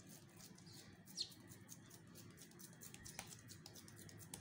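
Near silence with faint soft scraping as a silicone spatula spreads and presses minced meat flat in a non-stick pan. A single short, high, falling chirp comes about a second in, and there are a couple of faint ticks near the end.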